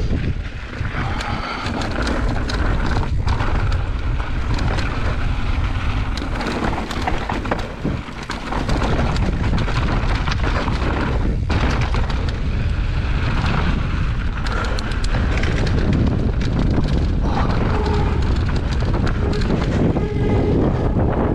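Wind buffeting an action camera's microphone on a fast mountain-bike descent, with a constant low rumble and the mountain bike rattling and its tyres clattering over rocky trail in frequent short knocks.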